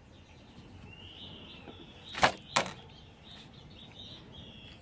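Two sharp plastic clicks about a third of a second apart, from the clear plastic propagation boxes being handled, over faint high chirping.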